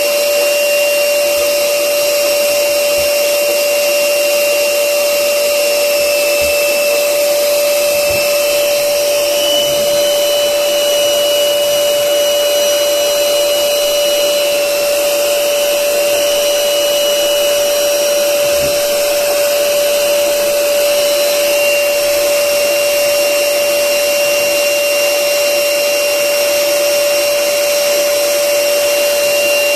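Electric air blower running steadily with a constant whine, inflating a giant balloon.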